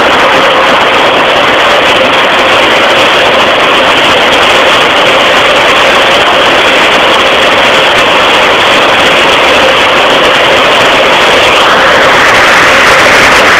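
Automatic car wash running: the gantry's rotating brushes and water spray scrubbing over a car, a loud steady rushing noise with a faint hum underneath.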